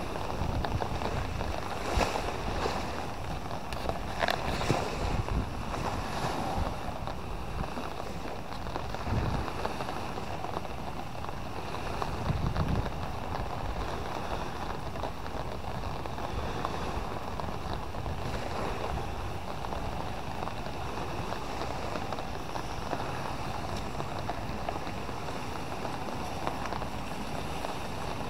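Seaside wind blowing across the microphone over small waves washing on the sand, a steady rushing noise with a few bumps and gusts in the first several seconds.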